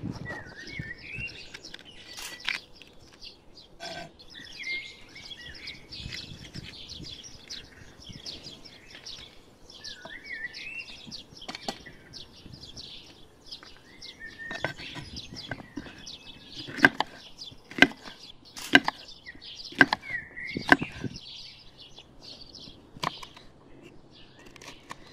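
Birds singing, one repeating a short wavering phrase every few seconds over steady chirping, while a kitchen knife cuts vegetables on a wooden cutting board. A run of sharp knife strikes on the board, about one a second, is the loudest sound, roughly two-thirds of the way through.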